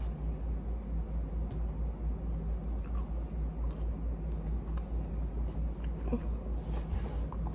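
A person chewing a mouthful of potato wedge, with a steady low hum underneath.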